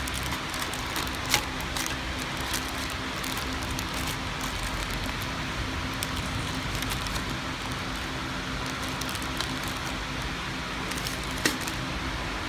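KT-250 packing machine running with a steady hum and whir. Over it, the clear plastic wrappers of freshly packed power strips crinkle and click a few times as they are handled, most sharply about a second in and near the end.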